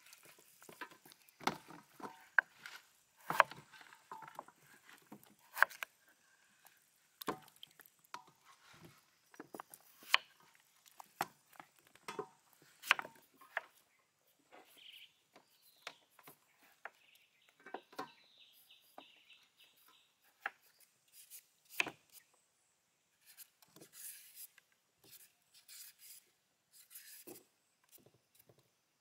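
Hands-on food preparation: irregular sharp clicks and knocks of a knife cutting vegetables on a wooden board and of raw beef rib pieces being handled on a metal tray, with scraping from a hand peeler on a carrot near the end.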